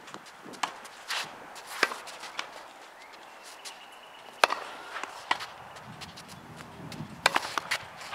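Sharp pops of a tennis ball on racket strings and on a hard court: a few bounces before a serve, the loudest pop about halfway through as the serve is struck, then a quick cluster of impacts near the end.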